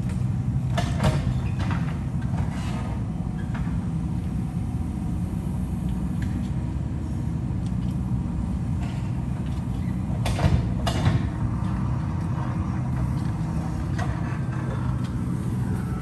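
JCB backhoe loader's diesel engine running steadily, with a few sharp knocks about a second in and again around ten seconds in.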